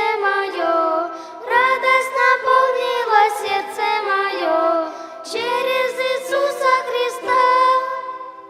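Voices singing a slow hymn in long, held phrases with violin ensemble accompaniment; the last chord fades out near the end.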